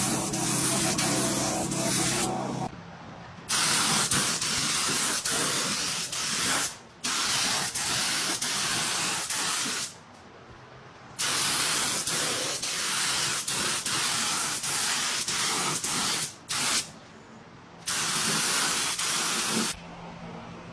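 Air spray gun spraying sealer onto panels: a steady hiss in about six passes of one to five seconds each, stopping for a second or so between passes.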